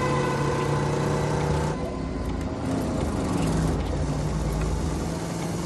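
Car engine running on the road, then about two seconds in the road noise drops and the engine's pitch falls as the car slows, settling at a lower steady note.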